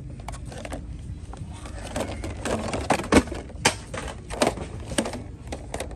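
Plastic blister packs of toy monster trucks being handled, crinkling and clacking against each other in a string of sharp clicks and knocks over a low steady hum. The clicks are loudest about halfway through.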